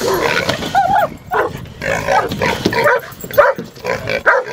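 A dog barking and yipping in quick, irregular short calls, excited by a young hog held in a live trap.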